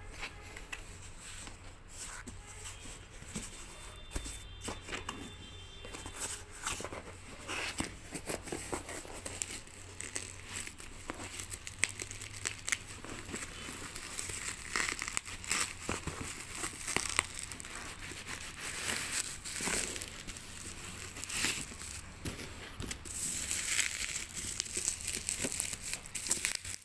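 Parcel packaging being opened by hand: irregular crinkling, rustling and tearing, busier in the second half.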